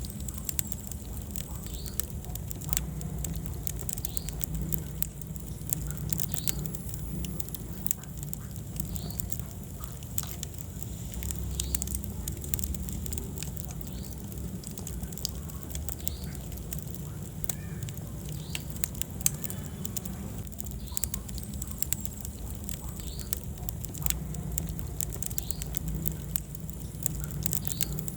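Wood fire burning in a fireplace: steady crackling with frequent sharp pops over a low rumble of flames.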